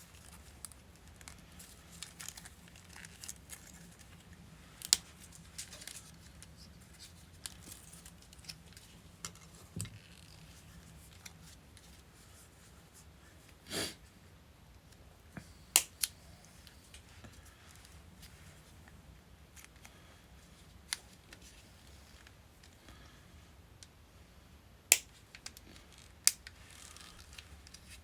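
Brittle, hardened old plastic covering being snipped and cracked off a motorcycle wiring harness. It comes as scattered sharp clicks and snaps, a few much louder than the rest, with faint rustling of the harness between them.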